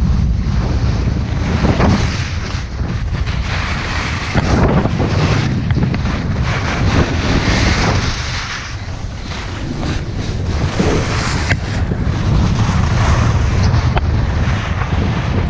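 Wind buffeting a moving action camera's microphone at speed downhill, a steady low rumble. Over it runs the shifting hiss and scrape of edges carving across packed snow, strongest during a spraying turn about halfway through.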